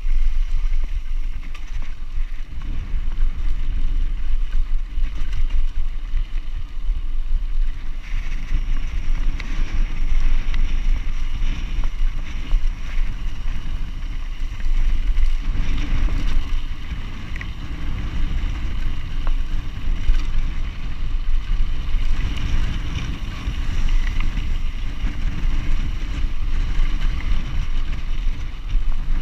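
Mountain bike riding fast on a dirt track, heard from a camera on the rider: wind buffeting the microphone over a steady low rumble of tyres on the dusty gravel surface.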